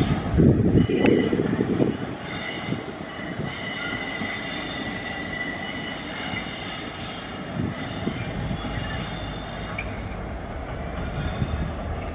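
Class 66 diesel-electric locomotives and tank wagons moving slowly off round a curve: the EMD two-stroke diesel engine rumbles, louder for the first two seconds, and the wheels squeal with a high, thin ringing that is strongest over the next few seconds.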